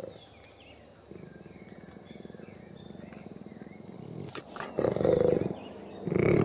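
Jaguar growling: a low, pulsing rasp for a few seconds, then two loud growls close together near the end.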